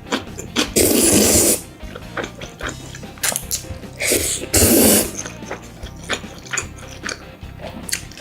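Spaghetti being slurped and chewed close to the microphone: two long loud slurps, one about a second in and one near the middle, with small wet smacking clicks between, over background music.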